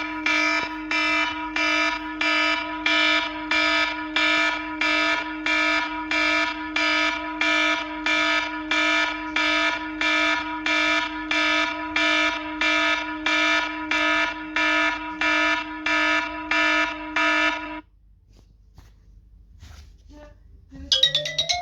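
iPhone ringtone: a buzzy, alarm-like electronic tone pulsing about twice a second, which stops abruptly about 18 seconds in. Near the end another ringtone starts with rising, sweeping tones.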